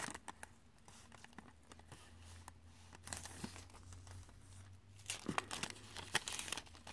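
Clear plastic sachets of nail-art confetti crinkling and crackling as they are handled, in irregular flurries that are busiest about three seconds in and again from about five seconds in.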